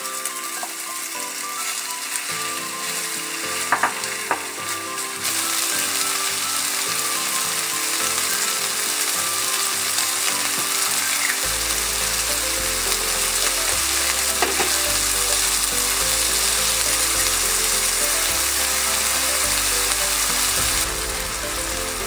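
Lamb pieces and onion sizzling as they fry in a hot wok, stirred with a wooden spatula, with a few knocks of the spatula; the sizzle grows louder about five seconds in and eases a little near the end. Quiet background music plays under it, with a bass line coming in about halfway through.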